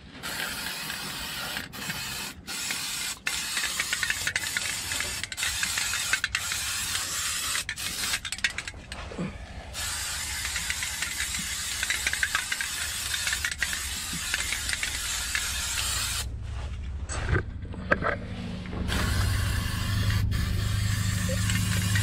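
Aerosol can of Fluid Film rust inhibitor spraying under a truck: a hiss broken by short gaps as the spray starts and stops, pausing about 16 seconds in. From about 19 seconds a louder, steady low hum joins the hiss.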